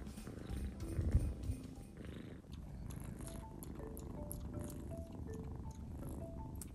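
Kitten purring close up, a pulsing low rumble that is strongest in the first two seconds and fainter after.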